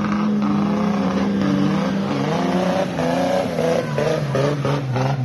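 Safari rally car engine running hard, its pitch holding steady and then falling away over the last few seconds.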